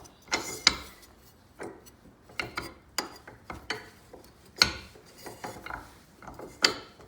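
Chuck Ward knife maker's vise being worked by hand, its knob turned and the clamp rotated: a string of irregular metal clicks and clunks, about eight sharp ones, with ratchety rubbing between.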